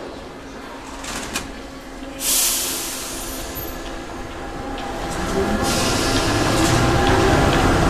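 Paris Métro MF67 train leaving the platform: a loud burst of compressed-air hiss about two seconds in, then the train pulls away, its motors' whine rising in pitch over a growing rumble as it gathers speed.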